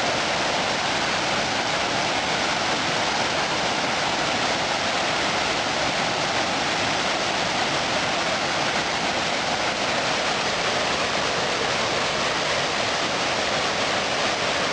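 A waterfall's water rushing steadily, a constant, even hiss of falling water.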